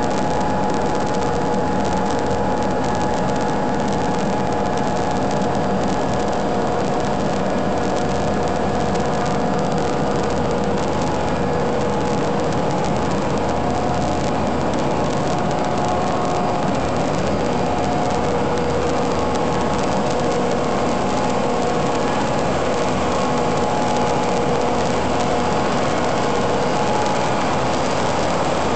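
Steady, unbroken drone of industrial refrigeration plant machinery, the evaporative condenser and the engine-room compressors, with several steady humming tones over a broad roar.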